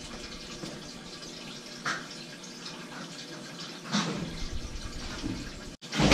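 Steady hiss of indoor room tone with two soft knocks, about two and four seconds in.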